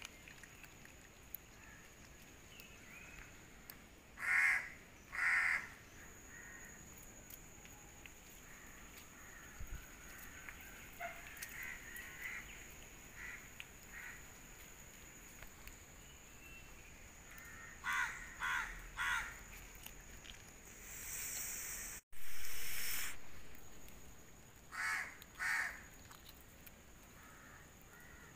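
Crows cawing in short runs of two or three calls, several times over, above a thin steady high tone. About three-quarters of the way in, a loud rushing noise swells up and then fades away.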